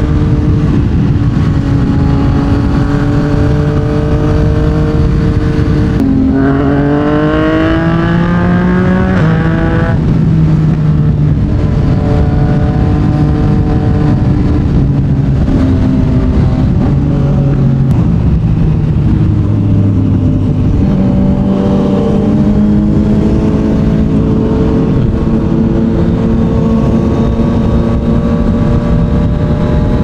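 Yamaha MT-09's three-cylinder engine through a Yoshimura R55 slip-on exhaust, running under way on the road. The revs climb steadily from about six seconds in, then fall away sharply as it shifts up. Further rises and drops in engine pitch follow later.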